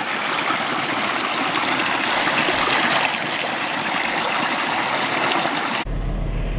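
Shallow creek running over rocks, a steady babble of flowing water. It cuts off abruptly near the end to a low, steady rumble inside a car.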